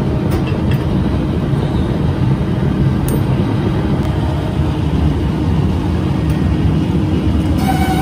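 Factory machinery running: a loud, steady mechanical din, heaviest in the low end, with a faint steady hum.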